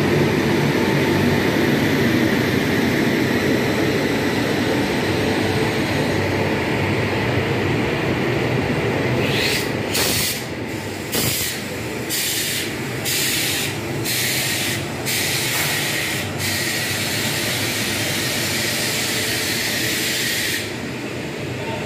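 LHB express train rolling past close by at slow departure speed: the locomotive and the generator car's diesel sets running, with steel wheels rumbling on the rails. From about ten seconds in, a high hiss starts and stops several times until near the end.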